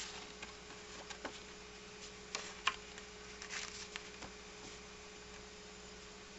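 Steady electrical hum and buzz from a battery-powered colour-changing LED lamp, whose circuit is giving off interference noise. Faint scattered clicks and ticks sound over it in the first four seconds.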